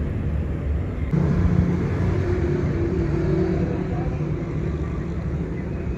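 Steady low mechanical rumble with a droning hum, its tone shifting abruptly about a second in.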